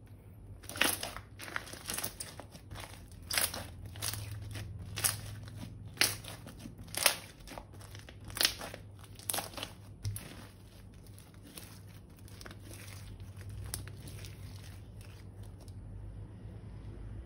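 Crinkling, crackling handling of crunchy slime and its plastic bag. Sharp crackly squeezes come roughly once a second for the first half, then go on more softly.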